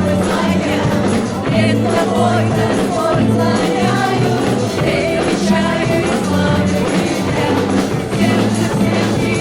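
Gospel-style praise and worship music: a band playing with voices singing the melody.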